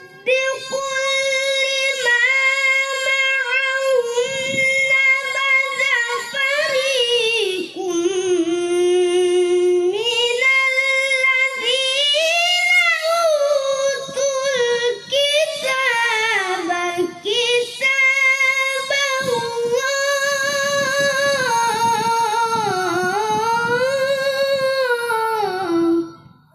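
A boy reciting the Qur'an in the melodic tilawah style: long, drawn-out phrases with ornamented rises and falls in pitch, held almost without a break. The phrase falls in pitch and ends about 26 seconds in.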